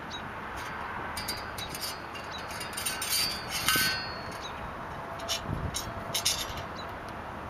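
Metal clicks, clinks and scrapes as the thin whip of a large coil CB antenna is slid and worked in the antenna's metal top fitting. A cluster of clinks with a brief ringing comes about three to four seconds in, and a second flurry of clicks follows a couple of seconds later.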